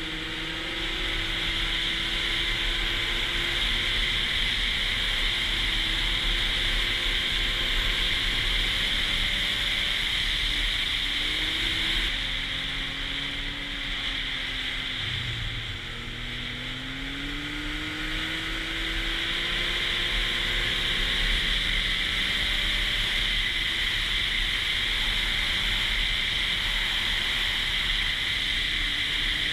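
Snowmobile engine running at trail speed under a steady rushing hiss. About halfway through it eases off, then the pitch climbs again as it speeds back up.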